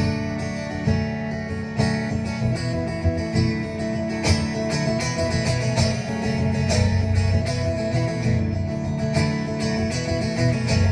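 Solo steel-string acoustic guitar strummed and picked in a steady rhythm, amplified live through a concert PA, with no singing.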